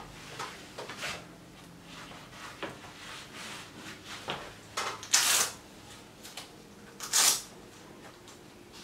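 Hook-and-loop (velcro) straps of a leather sports sandal being handled and fastened, with small rustles and clicks and two loud, short rasping rips about five and seven seconds in.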